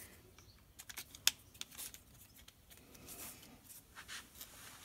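Faint clicks and light rubbing of plastic Flow Frame cell pieces being handled and moved against each other, with one sharper click a little over a second in.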